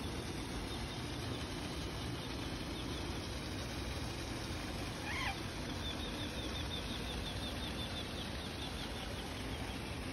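Steady rushing of a rocky river and its small waterfall. About halfway through a bird gives a short falling call, then a quick high trill of chirps for about three seconds.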